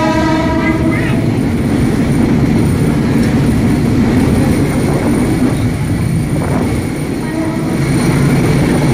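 Steady loud running rumble of a diesel railcar in motion, heard from inside the carriage through an open window. A steady pitched horn tone ends within the first second.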